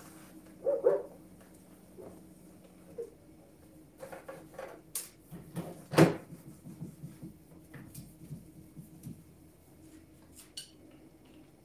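Sponge wiping and handling of a microwave oven while it is being cleaned: scattered clicks and knocks, the loudest a sharp knock about six seconds in. A short, loud bark-like sound about a second in.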